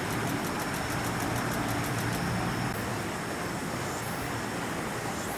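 Steady outdoor background noise. A quick run of faint high ticks, about five or six a second, plays over the first two seconds and then stops.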